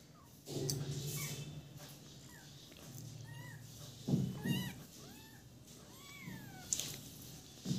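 Kittens mewing again and again in short, high, rising-and-falling mews. A couple of louder low thumps or rustles come about four seconds in.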